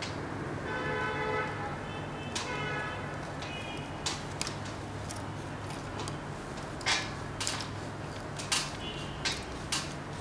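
A long screwdriver turning a screw overhead: irregular clicks and creaks as the bit works in the screw head and the hand regrips, with two brief squeaks near the start. A steady low hum lies under it.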